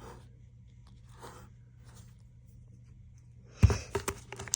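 Packaging and items being handled: a few faint rustles, then about three and a half seconds in a sudden thump followed by a quick run of crinkling and clicking.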